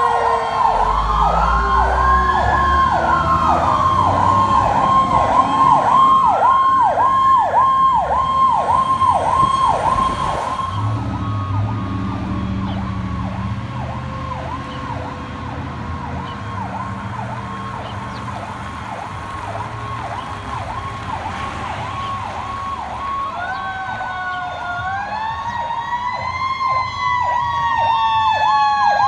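Fire truck sirens: an electronic siren yelps rapidly, about two cycles a second, throughout. Early on a second siren wails slowly up and down over it, and near the end a siren climbs and then slowly falls in pitch, over a low engine rumble.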